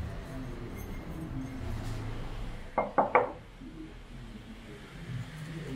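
Glazed ceramic lamp base set down on a tabletop: three quick knocks close together about three seconds in, over a low steady hum.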